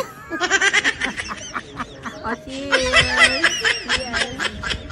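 Women laughing: a run of quick giggles, then a second, longer burst of laughter about halfway through.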